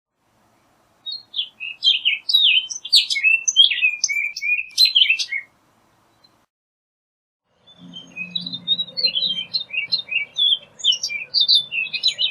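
Orchard oriole singing: two bouts of fast, varied notes, each about four seconds long, with a short pause between.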